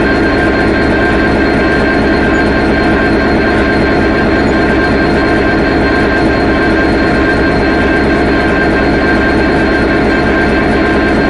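Diesel locomotive engine idling steadily, a constant deep running sound with a fixed whine above it and no change in speed.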